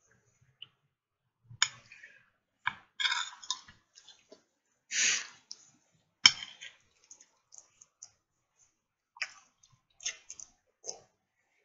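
Close-up eating noises: scattered wet clicks and smacks of a mouth and hands, with a short hiss about five seconds in.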